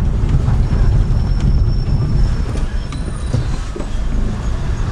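Steady low rumble of a car on the move, engine and road noise, with a few faint thin high-pitched tones now and then.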